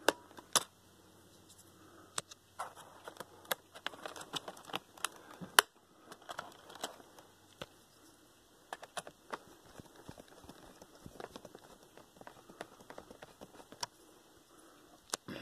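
Irregular small clicks and taps from handling the plastic case and parts of a Gateway MT6460 laptop by hand during reassembly. The sharpest click comes about five and a half seconds in.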